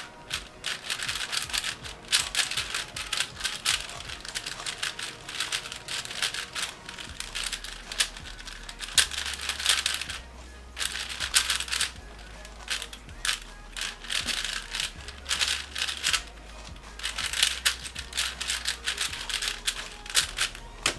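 Rapid clattering clicks of a speed cube being turned fast, coming in runs with short pauses between them. Background music with a low bass line plays underneath.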